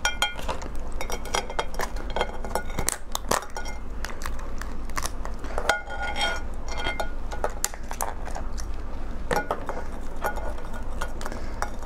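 Dense crackling and clicking of a raw swimming crab's shell being prised apart and broken by hand, close to the microphone, over a steady low hum.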